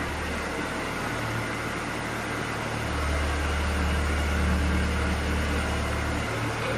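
Integrated DTH drilling rig running with a steady mechanical hum and hiss. From about three seconds in, a low drone grows stronger, then eases back shortly before the end.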